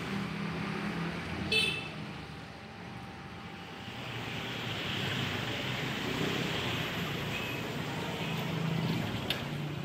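Steady street traffic noise with engines running. About a second and a half in, a short squeaky pop as a plastic straw is punched through the sealed film lid of a drink cup.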